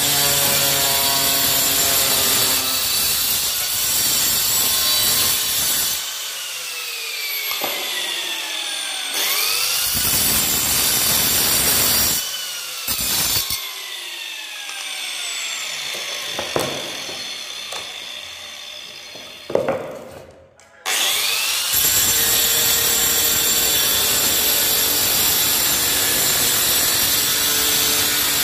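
Handheld angle grinder cutting through a tile strip, a steady gritty cutting noise. In the middle the grinder is let off and its whine falls away, is briefly restarted with rising whines, goes almost quiet about twenty seconds in, then spins up again and cuts steadily to the end.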